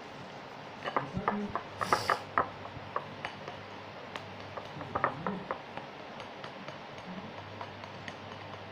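Plastic spatula stirring a sticky mixture of white glue, soy sauce and soap in a plate, giving irregular clicks and wet scrapes, busiest from about a second in and again around five seconds in.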